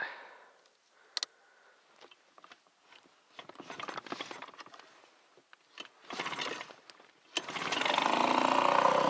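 Small Chinese outboard motor being pull-started cold in freezing weather: a few pulls of the starter cord with brief sputters, then it catches about seven seconds in and runs steadily and loudly.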